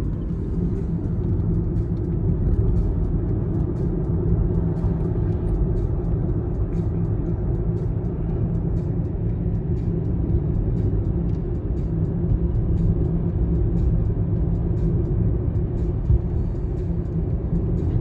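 Road and tyre noise inside the cabin of a Nissan Leaf ZE0 electric car driving at a steady speed: an even low rumble.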